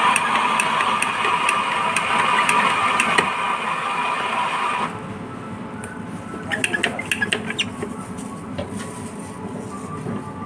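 Coffee machine running with a steady whir, cutting off abruptly about five seconds in, followed by a scatter of light clicks and clinks.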